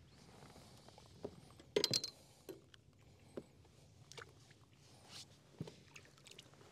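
Light knocks and clicks of fishing gear being handled aboard a kayak, with a short cluster of sharper knocks about two seconds in and single ones scattered through the rest.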